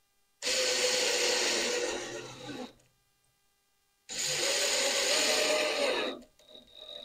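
Cordless drill driving two screws: two runs of about two seconds each, about a second and a half apart.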